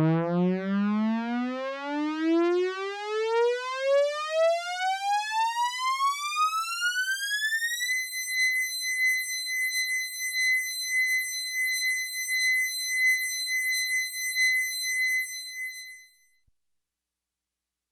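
Military alarm siren tone that winds steadily up in pitch for about eight seconds, from a low growl to a high note. It holds that single high note for about another eight seconds, then stops.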